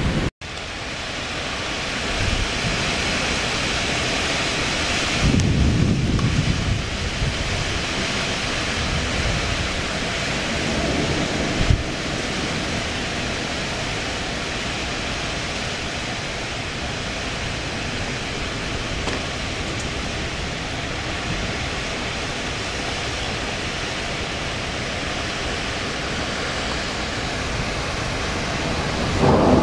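Strong, gusty thunderstorm outflow wind rushing through trees and leaves as a steady hiss, swelling in louder gusts about five seconds in and again near twelve seconds, with low rumbles of wind on the microphone.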